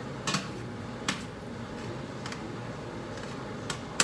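A metal utensil clinking against a stainless steel pot while stirring: a handful of sharp clinks spread out, the loudest near the end, over a steady low background hum.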